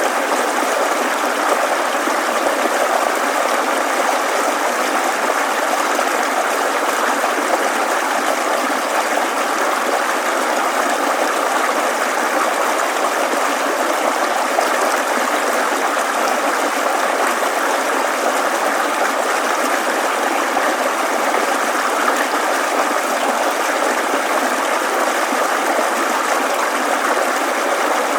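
Babbling mountain stream, the water running steadily with no deep rumble.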